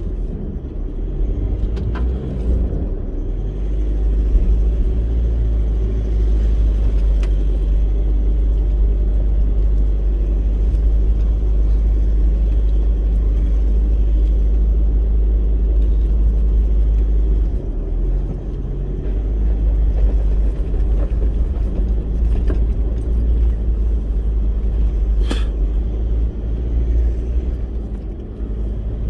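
A 4WD vehicle driving, its engine and road noise making a steady low rumble, with a few light clicks and knocks over it.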